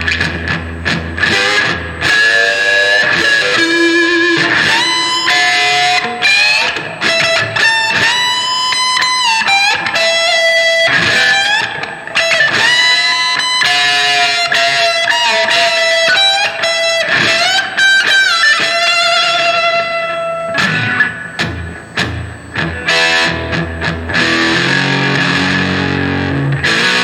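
Electric guitar, a Gibson Les Paul played through an Electro-Harmonix Oceans 11 reverb pedal into a Blues Cube amp. Low chords at the start give way to a lead line of held, bent notes, and lower chords come back near the end.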